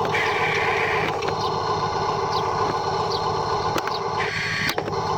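Radio-controlled model construction machines running: a steady mechanical whirring with occasional clicks, and a higher whine that comes in twice, about a second each time, near the start and near the end.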